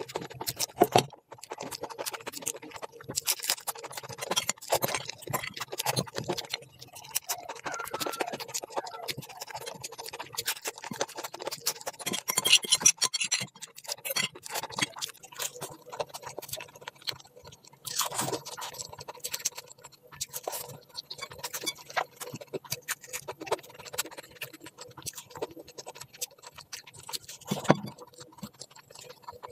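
Close-miked eating sounds: a person chewing and smacking food, a dense, continuous run of small clicks and crackles.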